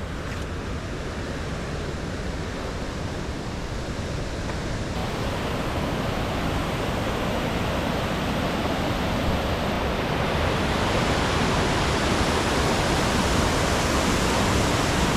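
Waterfall rushing: a steady hiss of falling water that grows gradually louder, turning brighter and hissier about five seconds in and again around ten seconds.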